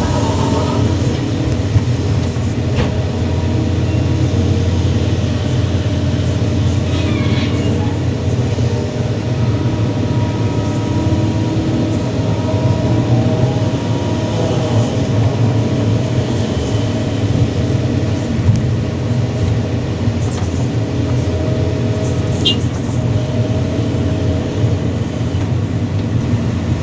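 Kobelco SK330-10 excavator's diesel engine running steadily under load, with a changing whine from the hydraulics as the machine digs and loads, and an occasional clank.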